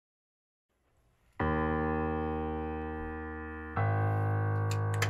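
Background music: sustained keyboard chords that start suddenly about a second and a half in and move to a new chord near the end. A few light clicks come near the end.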